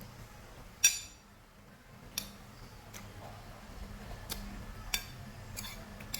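Eating utensils clicking and clinking against dishes, about seven sharp separate knocks spread over several seconds, the loudest about a second in.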